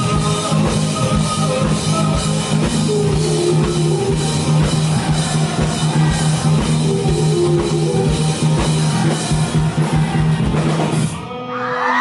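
Rock band playing live, with drum kit, guitars and a steady held bass note under the beat, through the final bars of a song. The music stops abruptly about eleven seconds in and the crowd starts whooping and cheering.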